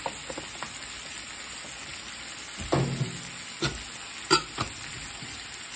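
Beef liver and onions sizzling in a frying pan, a steady hiss, with a few sharp knocks in the second half, the loudest about four seconds in.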